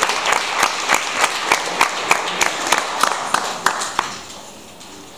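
Audience applauding, with sharp louder claps close by standing out about three times a second; the applause dies away about four seconds in.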